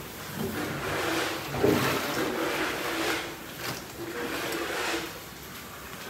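Soaked cattle feed being stirred and scooped by hand in a large metal vessel: a run of wet swishing and sloshing noises, with one knock about one and a half seconds in.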